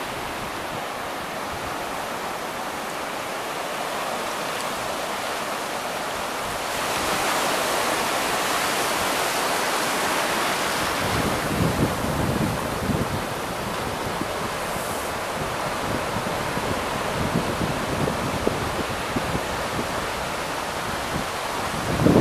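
Sea surf breaking and washing up a sandy beach: a continuous hiss of foam that swells about seven seconds in. Irregular low rumbling joins it from about halfway through.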